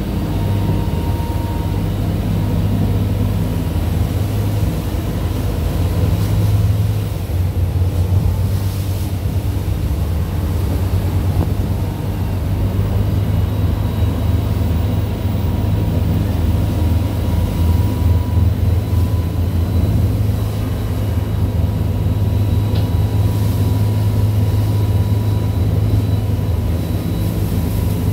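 A pilot boat's engines running steadily at speed: a constant low drone, with the rush of the churning wake over it.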